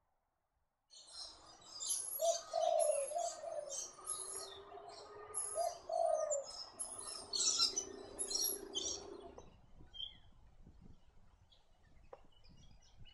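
Spotted dove cooing, two short groups of low, rounded coo notes, against busy high chirping from small birds. Both stop about nine and a half seconds in.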